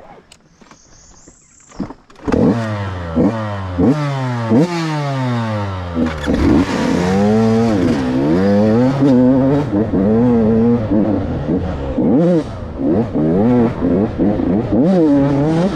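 KTM 85 dirt bike's two-stroke single-cylinder engine, coming in loud about two seconds in and then revving up and dropping back again and again as the bike accelerates and is shifted along the trail.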